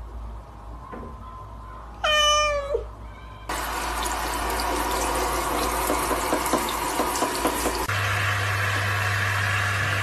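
A cat meows once, a single falling call about two seconds in. Then comes an abrupt change to a steady rush like water running from a tap. Near the end the sound changes again, to a steady noise with a low hum.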